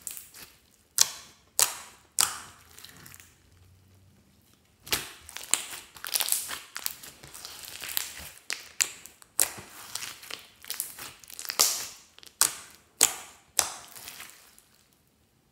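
Hands squeezing, pressing and stretching glossy slime studded with small foam beads: sticky squelches with sharp pops and crackles of trapped air. There are a few separate pops at first, then dense crackling from about five seconds in, with several loud pops near the end.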